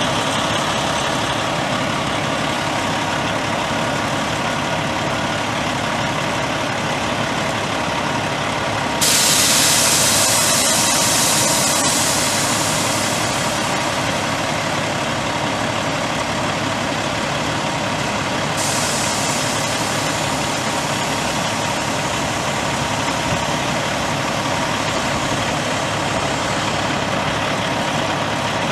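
Peterbilt 357 dump truck's Caterpillar C13 six-cylinder twin-turbo diesel idling steadily. About nine seconds in, a loud hiss of compressed air starts suddenly, tapers off over roughly ten seconds, then stops.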